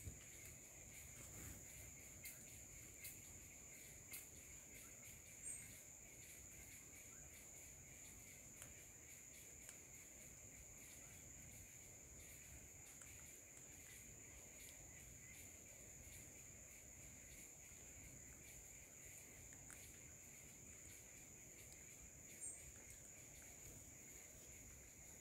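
Faint, steady high-pitched insect chorus in forest ambience, with a few faint scattered ticks and two brief high chirps, one about five seconds in and one near the end.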